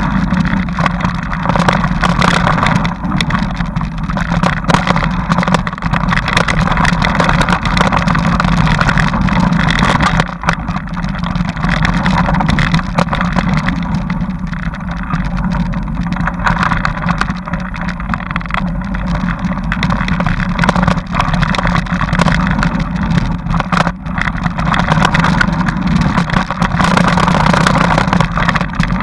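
Steady, loud ride noise of a bike travelling along a dirt trail, picked up by a camera mounted on it.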